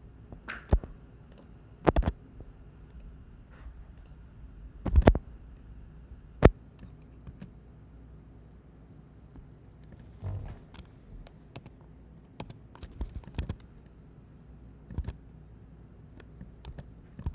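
Scattered computer keyboard keystrokes and mouse clicks, irregular and sparse, in small groups with pauses between, as text is selected and pasted over.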